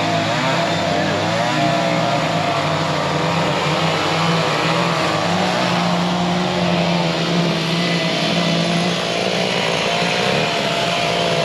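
Small petrol engines running steadily at a constant loudness, their pitch rising and falling at times as they rev.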